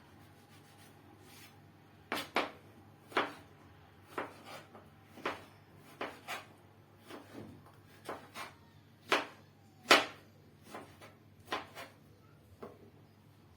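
Kitchen knife cutting food into cubes on a chopping board: about twenty sharp knocks at an uneven pace, starting about two seconds in.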